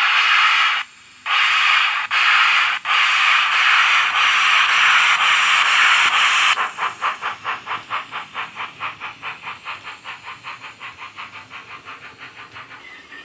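Sound-fitted Bachmann Webb Coal Tank model steam locomotive playing a Wheeltappers DCC sound file through its small speaker: a loud steam hiss, cut by one short break about a second in, then exhaust chuffs at about six a second that fade as the train runs away.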